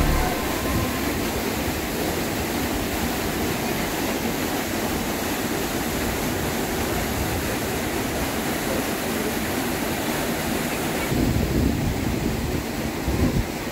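Steady rushing of a waterfall pouring into a rock-walled pool, with a few low bumps near the end.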